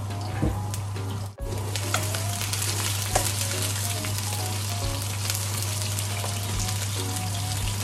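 Sliced red onions sizzling in hot oil in a nonstick wok, stirred with a wooden spatula that scrapes and taps against the pan now and then. The sound cuts out for an instant about a second and a half in.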